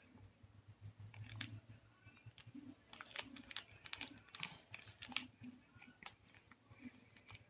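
Faint, irregular crinkling and clicking of a small plastic sweets packet being handled and picked at by a toddler's fingers.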